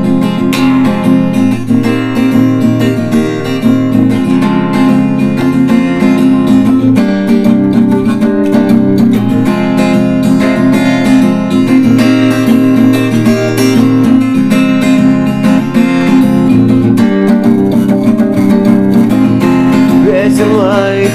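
Acoustic guitar strumming steady chords as a song intro. A singing voice comes in near the end.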